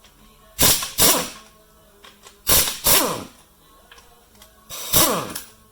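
A handheld power tool run in about five short bursts, in pairs, each ending in a falling whine as its motor spins down, backing bolts out of the engine's cover.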